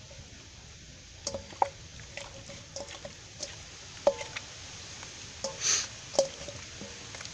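Hands squishing spice marinade into raw chicken pieces in a stainless steel bowl, with several knocks on the bowl that each set it ringing briefly.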